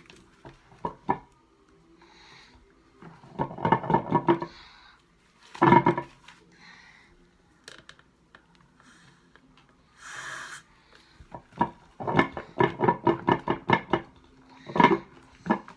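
A spoon stirring thick homemade slime in a bowl: bursts of quick scraping and clattering strokes against the bowl, with pauses between them. The longest run comes near the end.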